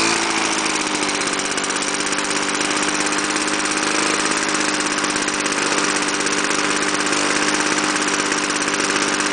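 Victa Commando lawn mower's two-stroke Powertorque engine, warmed up, running at a steady speed.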